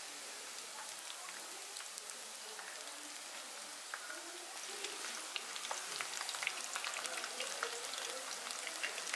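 Marinated soya chunks deep-frying in hot oil: a steady sizzle with fine crackling, growing busier and a little louder about halfway through.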